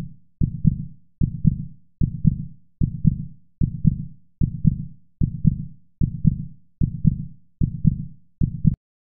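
Heartbeat sound effect timing a quiz countdown: a low double thump repeating a little faster than once a second, stopping shortly before the end.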